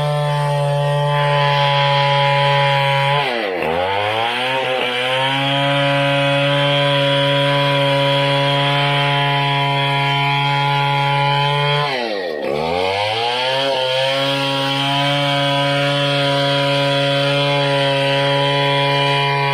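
Two-stroke chainsaw ripping lengthwise through an ironwood log, running steadily at high revs. About three and a half seconds in, and again about twelve seconds in, its revs drop sharply and climb back within a second or two.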